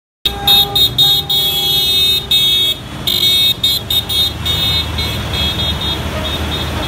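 Vehicle horns honking in repeated, uneven blasts over the low running of a Valmet 1780 Turbo tractor's diesel engine; the honking thins out after about five seconds, leaving the engine running.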